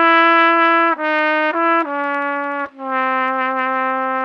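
Solo trumpet playing a slow microtonal phrase: F, a half-flat E, F, D, then a long held half-sharp C. The phrase is an Iraqi-maqam-style stretching of a blues figure, with its intervals evened out to three-quarter tones.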